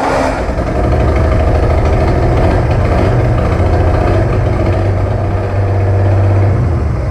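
Ford 4.9-litre (300) inline-six running loud and steady on an open manifold with no exhaust fitted. It runs poorly, which the owner puts down to fuel mixture or ignition timing.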